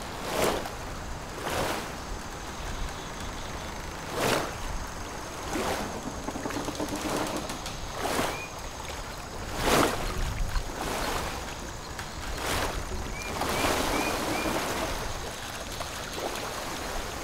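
Water lapping and splashing at a shoreline in irregular washes every second or two, with a few short bird chirps about eight seconds in and again near the end.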